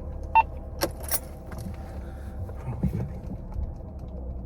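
Car engine idling, heard from inside the cabin, with a short beep about half a second in and a few clicks and rattles.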